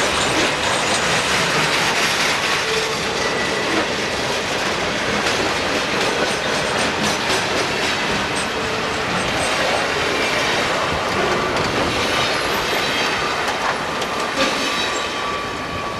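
Santa Fe freight train rolling past on curved track: a steady rumble of wheels on rail with repeated clicks over the rail joints and thin, high wheel squeals that come and go.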